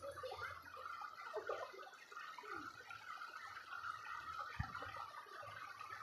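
Small waterfall cascading over rocks, a steady rushing of water, with faint voices in the background and one dull low thump about four and a half seconds in.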